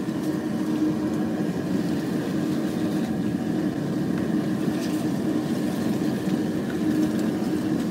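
Homemade gas burner running loudly and steadily: a continuous rushing noise with a low held hum.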